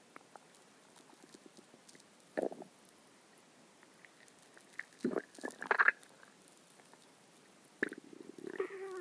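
A person's stomach growling: short gurgling rumbles in separate bouts, one about two and a half seconds in, a louder cluster around five to six seconds, and a longer gurgle with sliding pitch near the end.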